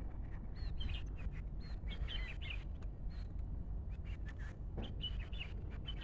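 Small songbirds calling in short, scattered chirps, several a second, some sliding quickly up or down in pitch, which the uploader takes for nightingales. A steady low rumble lies beneath.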